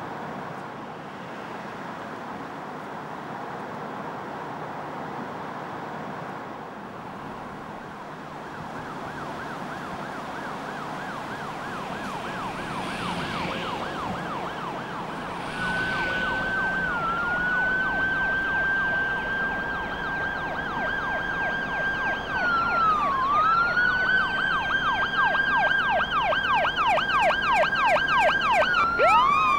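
Traffic hum, then emergency vehicle sirens: about a third of the way in a siren starts a fast yelp, and about halfway a second, steady high wail joins it, dipping in pitch now and then. The sirens grow louder toward the end.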